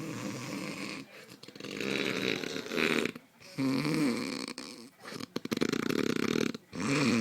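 A man snoring loudly in his sleep: a run of about five long snores, one after another every second and a half or so, one carrying a wavering tone.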